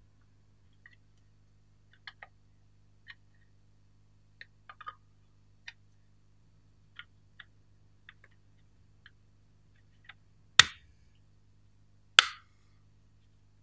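A pointed steel tool picking and scraping inside the small sheet-metal shavings drawer of a vintage hand-cranked pencil sharpener, giving scattered light ticks, then two loud, sharp metallic clicks about a second and a half apart near the end.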